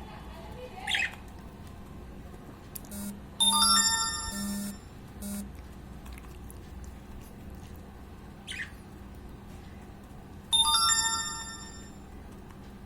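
A bright electronic chime, a phone ringtone, sounds twice: each one starts suddenly as a ringing chord and fades over about a second and a half. Short budgie chirps come about a second in and again a little past the middle.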